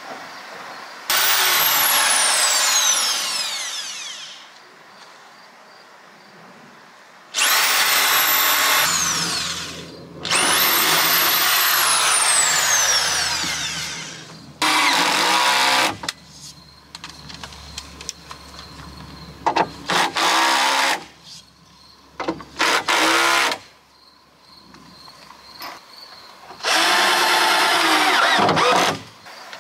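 A handheld power tool, drill-like, run in repeated bursts: four long runs and a few short trigger blips. Each run ends in a whine falling in pitch as the motor winds down.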